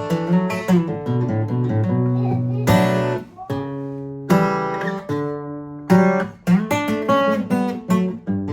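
Acoustic guitar playing a chord riff, strummed with sharp attacks every second or so between ringing chords.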